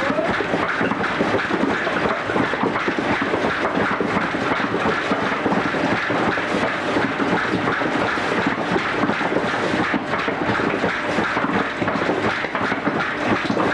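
Steady, dense mechanical clatter and rumble of workshop machinery running.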